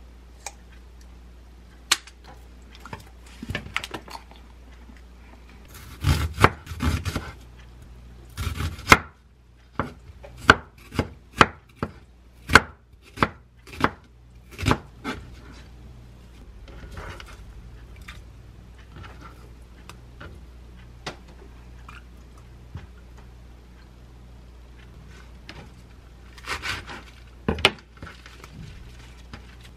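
Kitchen knife thinly slicing an onion on a wooden cutting board: a run of sharp knocks about two a second through the middle. Scattered quieter kitchen handling sounds come before and after, with a brief rustle of lettuce leaves near the end.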